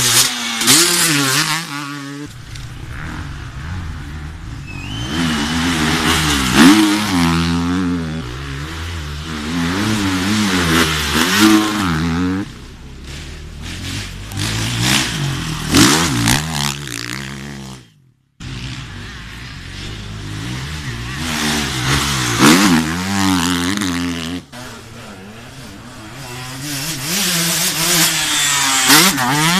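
Enduro motorcycles riding past one after another over the bumps, their engines revving up and dropping off repeatedly, with a new bike swelling up about every five seconds. The sound cuts out briefly just past halfway.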